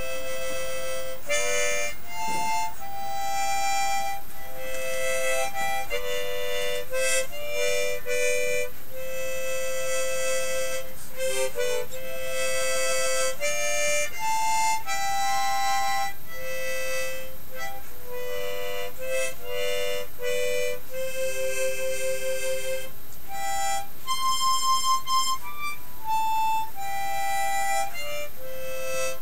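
Harmonica played solo: a slow tune of held notes, mostly one at a time with a few chords, and a warble in the tone about two-thirds of the way through.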